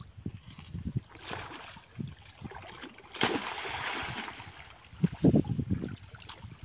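River water splashing and sloshing as a large dead tree branch is dropped into the water and dragged back up by someone wading waist-deep. The main splash comes about three seconds in and lasts over a second, followed by loud low thumps.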